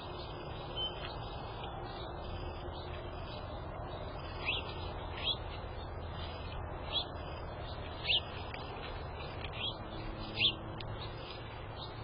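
Small wild birds chirping: short, scattered chirps, about seven in all, the loudest near the end, over a steady low background hum.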